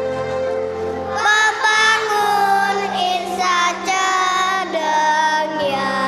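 Young children's choir singing together over instrumental musical accompaniment.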